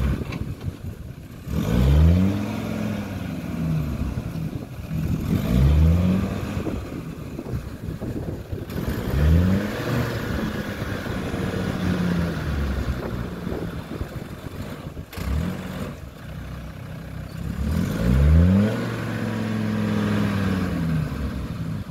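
Land Rover Discovery 2's Td5 five-cylinder turbodiesel revving again and again as it works through deep mud, the revs climbing and dropping back about six times.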